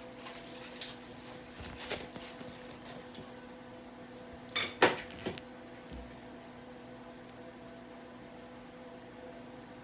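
A few light clicks and clinks from a bag of loose nuts and bolts being handled, the loudest cluster about five seconds in, over a steady low hum.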